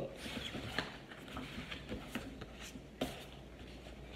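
Faint rustling and small taps of a children's paperback book being handled on a table, with one sharper click about three seconds in.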